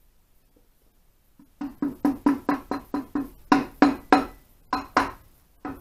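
Soft-faced mallet tapping an Ariel motorcycle crankcase, about sixteen quick, ringing knocks at roughly four a second that start about a second and a half in, seating the crankcase halves together over the crank.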